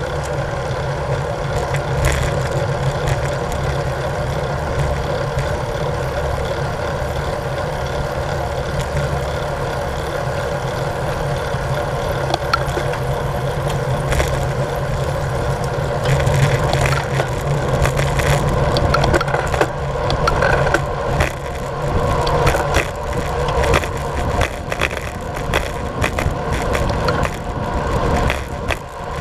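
Road bicycle riding on asphalt: steady tyre and drivetrain hum with wind rushing over the bike-mounted camera's microphone. From about halfway in it turns choppy and gusty as the bike speeds up downhill.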